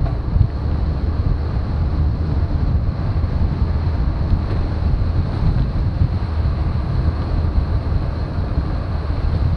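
Wind buffeting the microphone of a camera on a mountain bike riding fast downhill at around 40 km/h, a steady low rumble.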